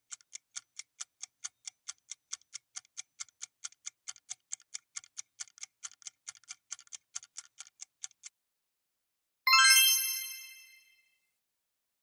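Quiz countdown-timer sound effect: clock ticks at about four a second, then they stop and a single bright chime rings out and fades, marking the end of the countdown and the answer reveal.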